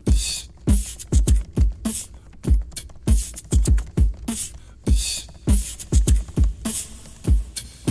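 Typing on a 2019 MacBook Air's butterfly-switch keyboard: irregular sharp key clicks, a few per second, each with a dull low thud.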